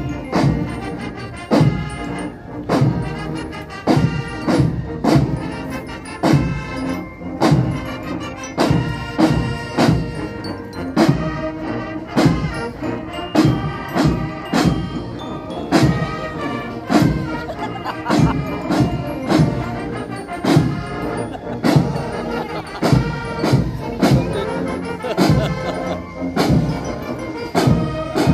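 Military marching band playing a march: drums beat a steady, even rhythm under held brass notes.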